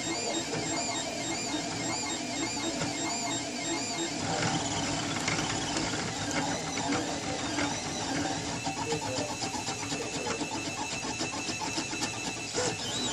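Printrbot Simple Metal 3D printer running a print, its stepper motors whining in short rising and falling tones that shift pitch with each quick move of the print head.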